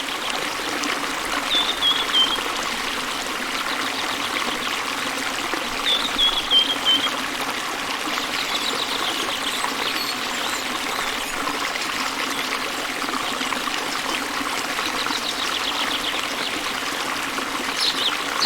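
Water trickling steadily, like a small stream, with a bird's short series of falling chirps twice, about one and a half and six seconds in, and more chirping near the end.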